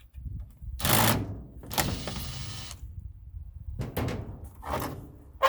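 Sheet-metal furnace parts rattling, clanking and scraping in several loud bursts as they are worked apart by hand, with a sharp clank at the very end.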